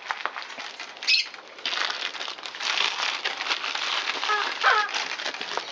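Torn Christmas wrapping paper crinkling and crackling as it is scrunched up and gathered by hand, with a couple of short chirps a little past four seconds in.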